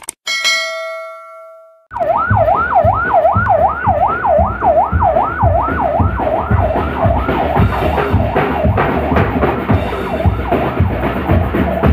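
A click and a short bell-like chime, then a siren wailing quickly up and down, about two sweeps a second, fading after several seconds, over a street drum band's steady beat.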